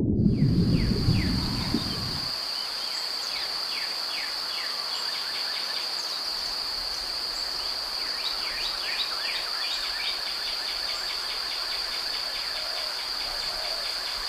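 A steady high-pitched insect trill, typical of crickets, runs throughout, with many short downward-sweeping bird chirps over it. A low rumble fades out in the first two seconds.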